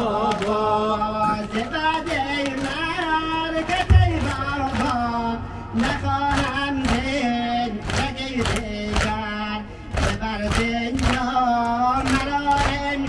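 Noha lament chanted in Persian (Dari) by a male reciter, with many voices joining. It is set against a steady rhythm of sharp slaps, the mourners' chest-beating (matam). One heavy thump comes about four seconds in.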